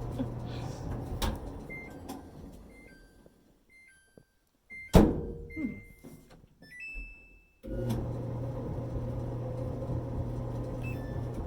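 Samsung dryer's drum motor running with a steady hum, which winds down to a stop over the first few seconds while short control-panel beeps sound. A loud knock about five seconds in and a longer beep follow, then the dryer starts up again abruptly and runs steadily on its new ball-bearing idler pulley.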